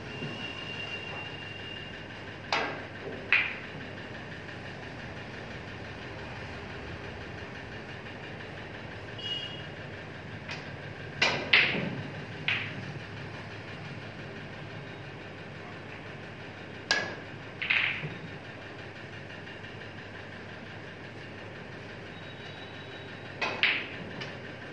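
Snooker balls clicking: sharp single knocks of cue tip on ball and ball on ball, coming in small groups of two or three, about four times. A steady mechanical hum runs under them.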